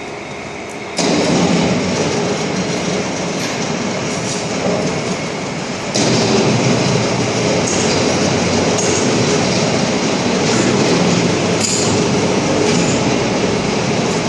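Continuous factory-floor machinery noise: a dense mechanical rumble and clatter with occasional metallic clinks, getting louder about a second in and again around six seconds in.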